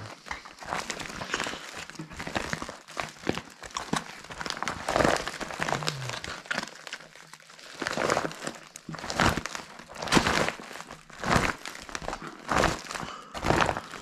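Clear vinyl of a confetti-filled beach ball crinkling and rustling as hands handle and smooth it, in irregular bursts that come louder and more often in the second half.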